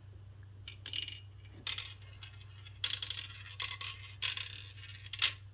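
A glass marble running down a plastic marble-run tower, clicking and rattling in about six separate bursts as it drops through the spiral funnels and tracks.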